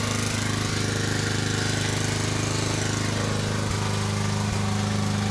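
Starter solenoid on an Oliver 770 tractor clattering rapidly and steadily. The owner traces it to a key switch that had begun passing current to the solenoid.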